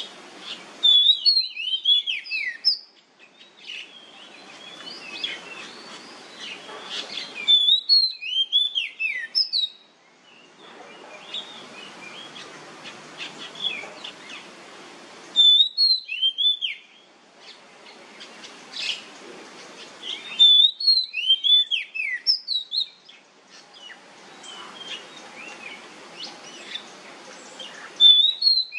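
Oriental magpie-robin (kacer) singing in the loud 'nyemplong' style: five bursts of clear, sharply gliding whistled notes, each a second or two long, five to eight seconds apart. Softer twittering and a hissing background fill the gaps.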